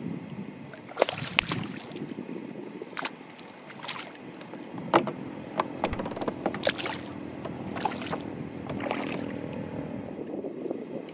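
Irregular splashes and knocks at the side of a kayak as a hooked fish is brought alongside and handled at the water, over wind and lapping water.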